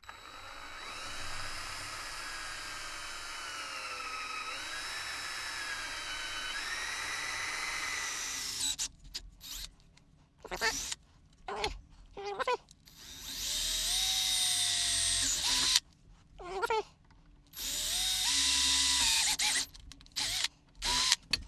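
Handheld power drill boring out pilot holes in a cue ball shifter knob with a larger bit. It runs steadily for about eight seconds, its pitch sagging and recovering as the bit bites, then in a string of short bursts and two runs of about two seconds each.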